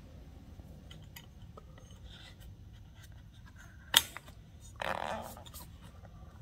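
Hands working vinyl seat upholstery into a steel seat-bracket pivot: faint rubbing and handling noise, a single sharp click about four seconds in, then a brief rustle of the material.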